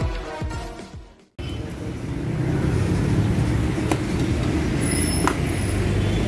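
Intro music fading out, then after a short gap a steady low engine rumble, like a vehicle engine running, with a few faint clicks about four and five seconds in.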